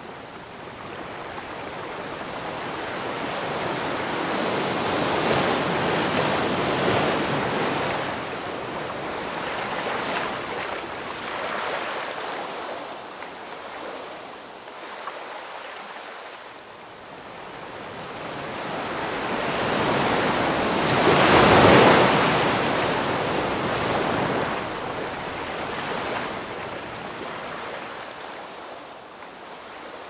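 Small sea waves lapping and washing in at the shore in slow swells that rise and fade, the biggest wash about two-thirds of the way through.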